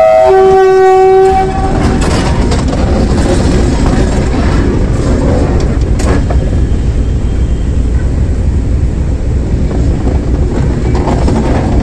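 Diesel locomotive horn sounding one short blast on a single steady note at the start, then the diesel-electric locomotive rumbling steadily as it rolls slowly over the rails, with a clank about six seconds in.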